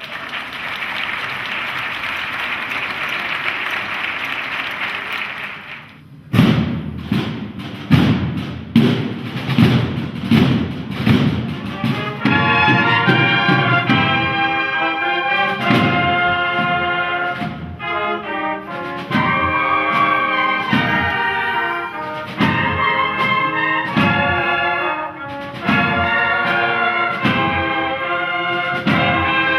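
Audience applauding, which stops about six seconds in. A cornet-and-drum band then starts with steady drum strokes, and about six seconds later the cornets come in with a march melody over the drums.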